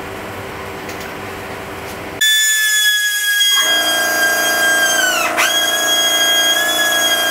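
Small hand-held rotary tool with a felt polishing tip starts abruptly about two seconds in and runs with a loud, steady, high-pitched whine while polishing a clear plastic canopy piece. Its pitch dips sharply for a moment about five seconds in, then recovers.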